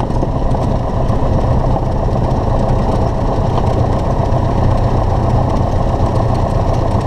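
Cessna 172's piston engine and propeller running steadily at low taxi power, a constant drone.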